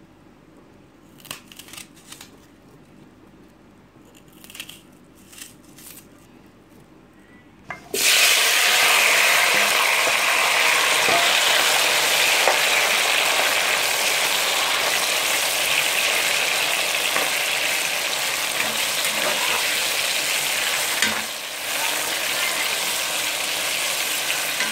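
A few light clicks for several seconds, then about eight seconds in chopped tomato, onion and peppers go into hot oil in a pot and sizzle loudly and steadily while being stirred with a spoon.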